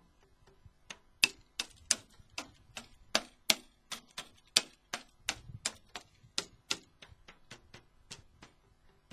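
Drumsticks striking the pads of a homemade electronic drum kit with its sound software unplugged, so only the bare hits are heard: a quick, even run of faint sharp clicks, about three a second, with a dull low thump about five seconds in.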